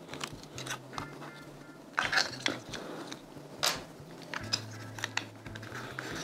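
The two plastic halves of an inline lamp-cord dimmer housing being pressed and snapped together by hand around the cord: a scatter of small plastic clicks, knocks and scrapes, loudest about two seconds in and again a little before four seconds.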